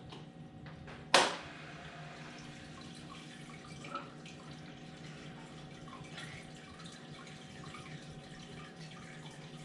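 A sharp click about a second in, then water trickling and dripping over a steady hum: a newly primed Polar Aurora canister filter switched on and running for the first time, pushing water back into the fish tank.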